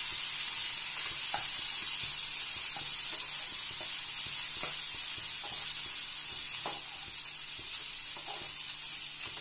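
Cluster beans and coarsely ground chana dal frying in a nonstick pan with a steady sizzle, stirred with a wooden spatula that scrapes and knocks against the pan every second or so.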